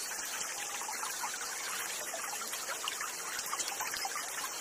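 Steady trickling of a small forest stream, an even hiss that does not change.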